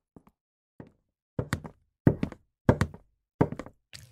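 A run of dull knocks, single strikes and quick pairs, coming about every half second to second.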